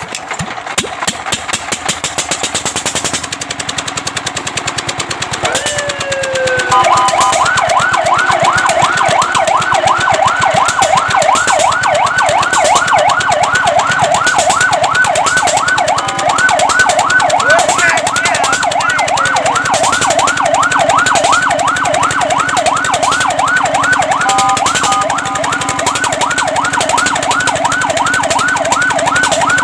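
Fire truck siren in a fast yelp, its pitch sweeping up and down about four times a second. It starts about seven seconds in, after a rapid rattling pulse and a short falling tone, and breaks off briefly twice.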